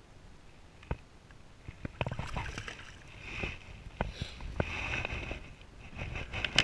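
Scattered knocks and clicks of fishing tackle being handled on a boat deck, with a light hiss between them; the loudest knock comes near the end.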